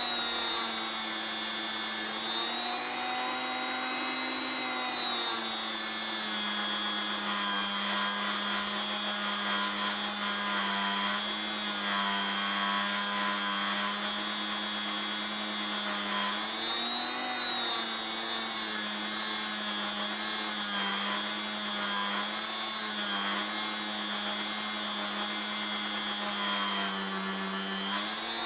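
Bench-mounted rotary tool running at low speed with a felt polishing bob, buffing a stainless steel watch bracelet with polishing compound. A steady motor whine whose pitch dips and recovers a few times.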